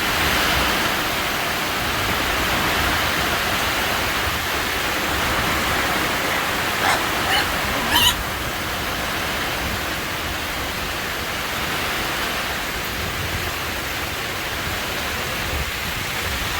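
Strong storm wind and rain making a steady rushing noise, with two or three brief sharp sounds about halfway through.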